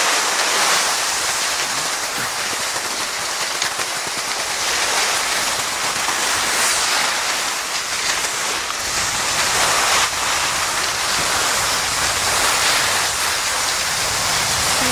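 Skis sliding over crusted spring snow, a steady scraping hiss, with more low rumble from about nine seconds in.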